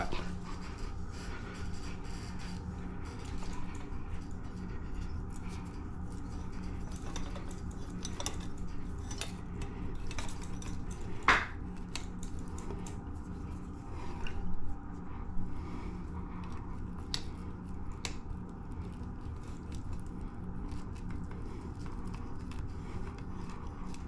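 Light clicks and scrapes of electrical wires being twisted together by hand for a wire-nut splice, with one sharper click about eleven seconds in, over a steady low hum.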